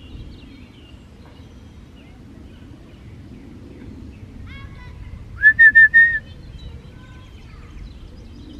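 High whistle-like chirps, faint at first, then a quick run of several loud short notes about halfway through, over a steady low rumble.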